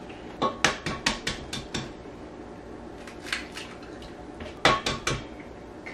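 Eggs being knocked and cracked against a mixing bowl, with shells set down: a quick run of sharp clinks and taps, a single tap about three seconds in, and another short cluster near the end.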